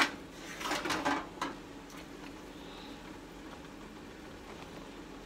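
King crab legs being handled into a pot of boiling water: a couple of sharp knocks and some clatter in the first second and a half, then only a faint steady hiss.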